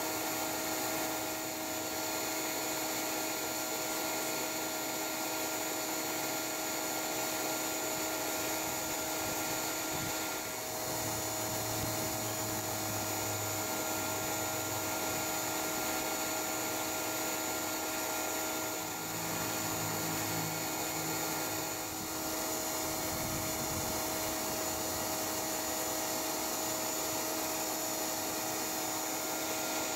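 Bee vacuum's motor running steadily, a constant whine over rushing air. A lower hum joins for about ten seconds in the middle.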